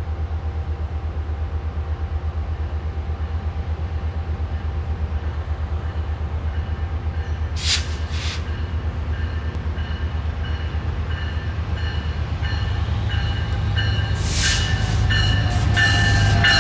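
Metrolink passenger train led by an EMD F125 diesel locomotive approaching and pulling into the station, a low rumble that grows louder toward the end. Two short hissing bursts come about halfway, a bell rings with repeated strikes in the second half, and falling tones come in near the end as the locomotive draws alongside.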